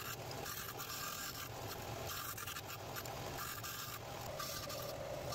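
Disc sander running while a small hole-saw-cut wooden spline is pressed and worked against the abrasive disc, a scratchy rubbing of wood on sandpaper over the motor's steady hum, cleaning up the spline's edges.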